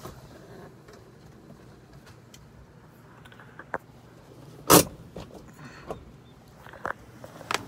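Scattered clicks and knocks, with one loud thump a little past halfway, over a faint low steady hum.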